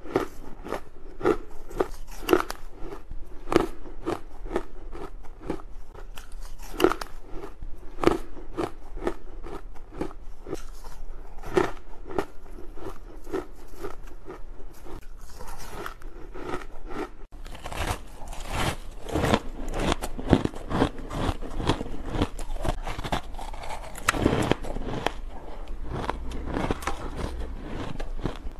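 Close-up biting and chewing of soft, porous ice chunks: sharp crunches about once a second. About two-thirds of the way through, a switch to denser, faster crunching of snowy shaved ice.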